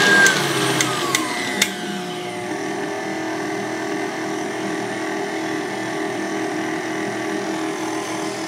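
KitchenAid Artisan stand mixer with its wire whip beating egg whites. In the first second or two the motor winds down in pitch with a few sharp clicks, then it runs on at a lower, steady pitch.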